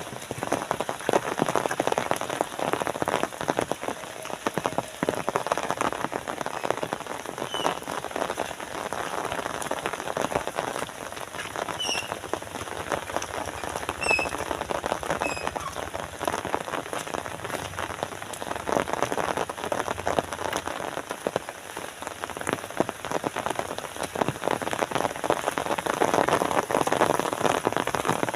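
Steady rain falling, a dense patter of drops. A few short high chirps sound between about 8 and 15 seconds in.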